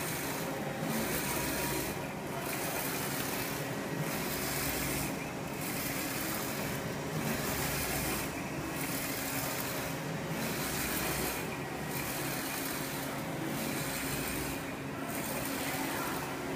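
UV flatbed printer running while printing phone cases: a steady machine hum and hiss from the moving print-head carriage, with the hiss dropping away briefly about every second and a half in a regular rhythm.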